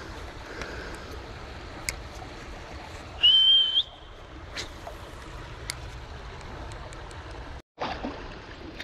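Steady outdoor noise of wind and water at the shore, with a short, loud, high whistle about three seconds in that holds one note and then rises slightly as it ends. A few light clicks sound now and then, and the sound drops out for an instant near the end.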